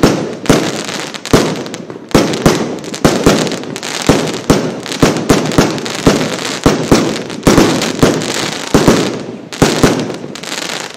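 Worlds Toughest Fireworks 'Shocking!' multi-shot firework cake firing: sharp bangs in quick succession, about three a second, with a steady hiss of noise between them. The barrage stops near the end.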